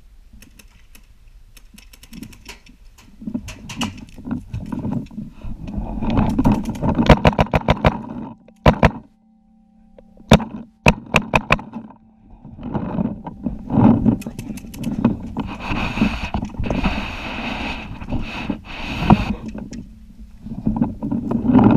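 Paintball markers firing rapid strings of shots in several bursts, the longest about six to eight seconds in, with shorter strings around eleven and fourteen seconds.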